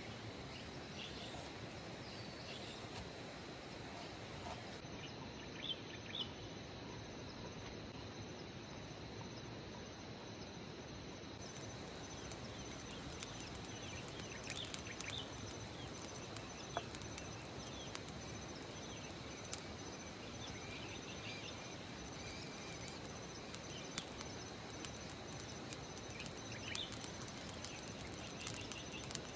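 Countryside ambience: insects keep up a steady high buzz and birds chirp now and then, with a few sharp crackles from a small wood fire burning in a folding camp stove.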